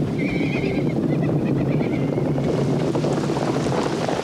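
Cartoon sound effect of a heavy downpour with rushing wind, a steady dense noise throughout.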